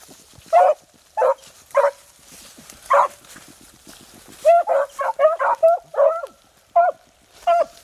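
Beagles baying on a rabbit's scent trail: short, high hound yelps, spaced out at first, then a quick run of overlapping calls a little past halfway.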